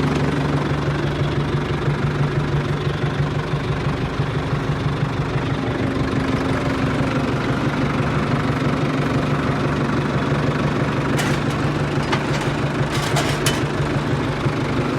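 Tractor diesel engine idling steadily, with a few sharp clicks about two-thirds of the way through.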